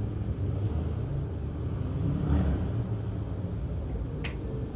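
Low rumble of a distant fireworks display that swells briefly about two seconds in. There is one sharp click near the end.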